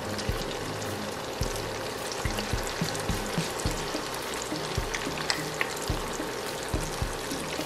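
Corn fritter batter deep-frying in hot oil: a steady sizzle dotted with many small crackling pops.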